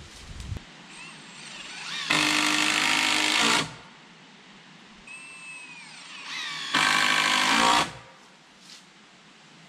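Cordless drill driving screws into the wooden ladder's rungs: two runs of about a second and a half each, some four seconds apart.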